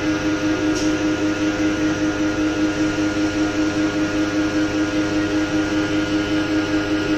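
CNC turning centre running, its spindle turning a steel shaft while a diamond burnishing tool works the outside diameter: a steady machine hum with one strong low tone and a light, regular pulsing.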